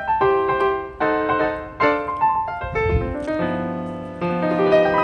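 Background music: a piano playing a gentle melody over chords, notes struck about every half second.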